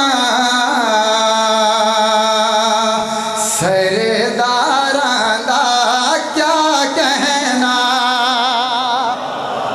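A man singing a Punjabi qasida (devotional praise poem) into a microphone, unaccompanied. He holds long, drawn-out notes with a wavering pitch, with a short break about three seconds in before the next line.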